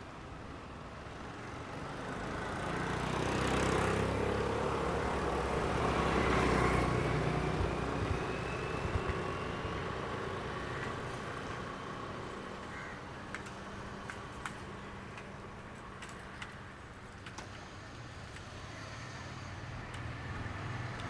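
A motor vehicle passes close by: its engine swells to loudest about four to seven seconds in and then fades away into steady street background noise. A few light clicks follow in the second half.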